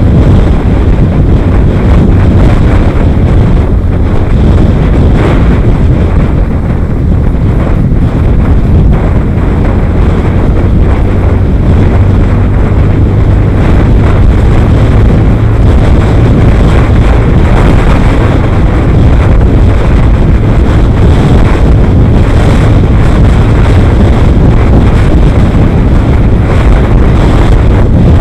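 Wind buffeting the microphone of a camera mounted on a moving vehicle, a loud steady rumble with a low drone underneath from the vehicle and road.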